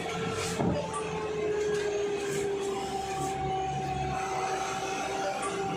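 Truck driving along, its engine and road noise heard from the cab, with a steady whine that slowly falls in pitch and a second, higher whine joining about halfway through.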